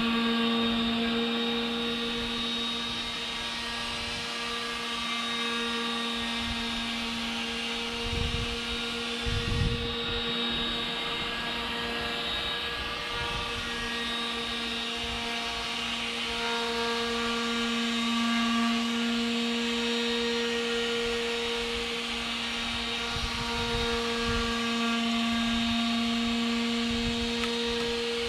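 A motor running steadily, one constant humming whine with overtones that swells and fades a little, with a couple of low thumps about eight and ten seconds in.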